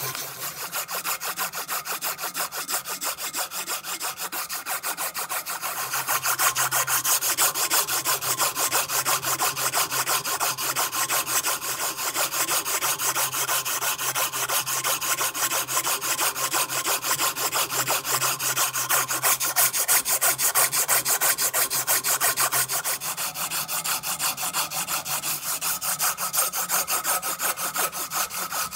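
A strip of sandpaper pulled rapidly back and forth around the steel shaft of an old open-ended wrench, a quick, even rasping rub as the rust is polished off. The strokes grow louder about six seconds in.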